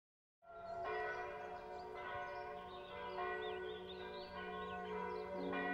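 Church bells ringing, starting about half a second in, with fresh strokes every second or so over a sustained hum.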